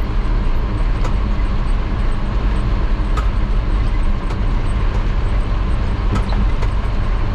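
Engine of a Toyota Bandeirante 4x4 running steadily while driving over stone-paved streets, heard as a loud, even drone inside the vehicle. Now and then a sharp knock or rattle comes through, about three times.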